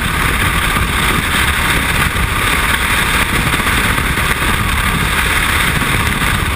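Loud, steady rush of freefall wind blasting over a helmet-mounted camera's microphone.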